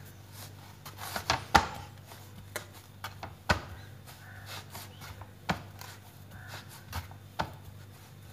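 Hands pressing and rolling a log of almond-paste dough on a plastic cutting board: soft rubbing with scattered sharp taps and knocks against the board, about eight in all.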